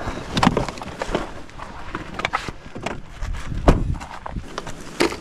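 Footsteps on gravel and dirt with irregular handling knocks, and one louder thump a little past halfway.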